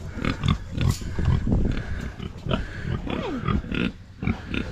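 Idaho pasture pig sow grunting in a run of short, low grunts, about two or three a second, with one longer pitched call about three seconds in.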